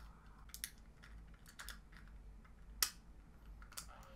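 A few small, sharp plastic clicks and taps, spread out, the loudest a little under three seconds in, as fingers work the battery compartment cap of a small toy drill.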